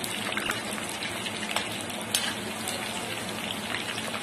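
Jackfruit pieces deep-frying in hot mustard oil in a kadhai: a steady sizzle with fine crackles, and a sharp click about two seconds in.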